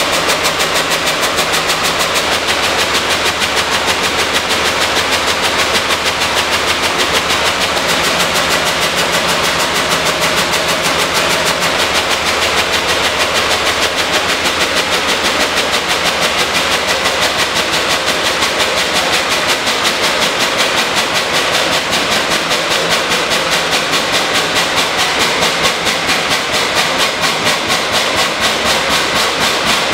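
1932 Pythagoras-Drott hot bulb engine running steadily on diesel with a loud, fast, even beat and mechanical clatter, without its generator load.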